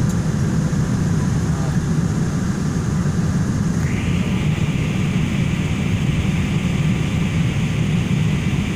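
Steady low roar of cabin noise inside a Boeing 777 on approach with its landing gear down. About four seconds in, a higher hiss rises in and stays on under the roar.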